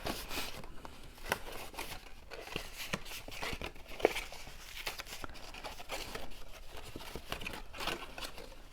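Cardstock being handled and folded along its score lines: soft paper rustling and crinkling with scattered light taps and clicks, one sharper tick about four seconds in.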